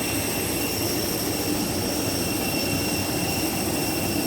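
Steady airliner cabin noise: an even rush of air with a constant high-pitched whine, unchanging throughout.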